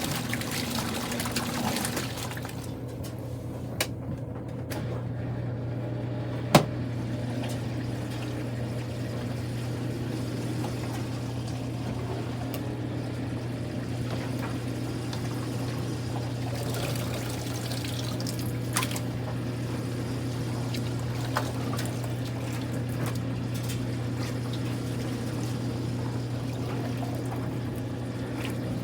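Kuppet portable washing machine running: water pouring and sloshing over a steady motor hum, with a few sharp clicks, the loudest about six and a half seconds in.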